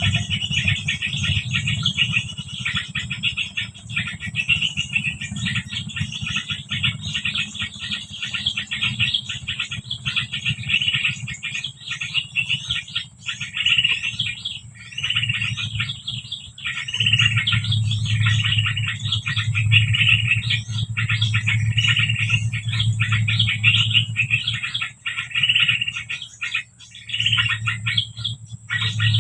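Small-bird calls used as a lure: high chirping phrases repeated about once a second, over a steady low hum.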